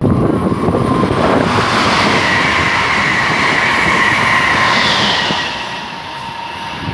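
Electric passenger train passing at speed: a loud rush of wheels and air with a steady whine, easing off after about five seconds.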